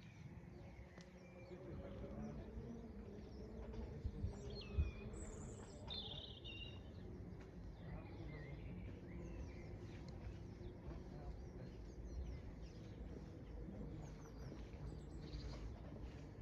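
Faint birds chirping in short high calls, mostly in the middle and again near the end, over a low steady background rumble.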